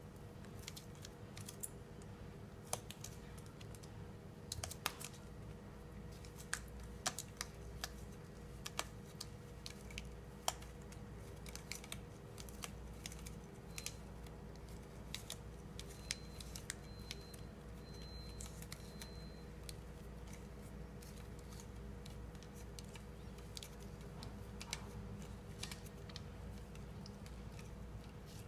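Faint scattered clicks and taps of hands peeling and unwinding silicone grip tape off a hockey stick shaft, over a steady low hum.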